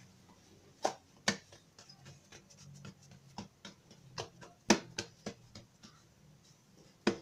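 Hands pressing and patting a round of bread dough flat on a granite counter: scattered soft taps and a dozen or so short clicks, a few of them sharper, over a faint low hum.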